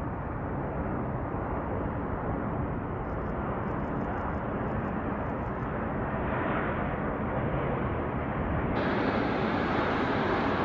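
Jet airliner engine noise, a steady rumble that grows slowly louder, then jumps abruptly to a louder, brighter sound about nine seconds in.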